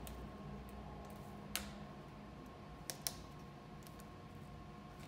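Light plastic clicks and taps as a thin plastic strip is worked into the slots of laser-cut acrylic face-shield clips. There is one sharp click about a second and a half in, then two close together about three seconds in, with fainter ticks between.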